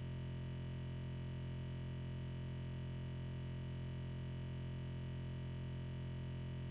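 A steady, unchanging electronic drone: a strong low hum with many constant higher tones stacked above it, with no breaks or changes.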